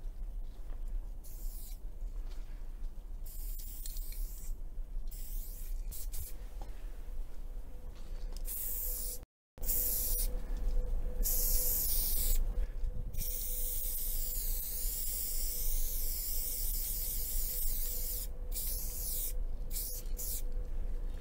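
Aerosol spray-paint cans hissing in bursts of a second or so, with short pauses between strokes. The sound drops out briefly about nine seconds in, then the spraying comes back louder and in longer strokes.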